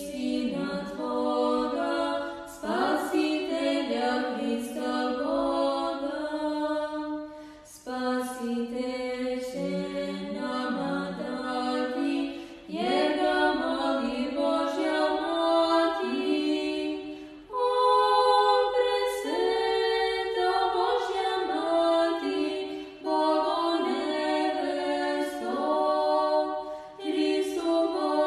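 A cappella church choir singing a Serbian Orthodox hymn to the Mother of God, in sustained phrases with short breaks between them.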